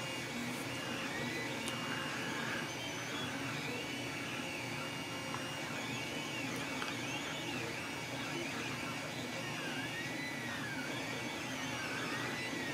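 A 3D printer running, its stepper motors whining in repeated rising-and-falling sweeps over a steady hum.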